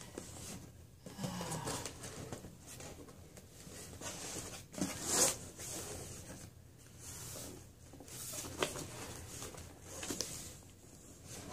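Hands scraping, rubbing and tugging at a cardboard mailer box in irregular short strokes, with a few louder scrapes, as it is pried at from the wrong end and will not open.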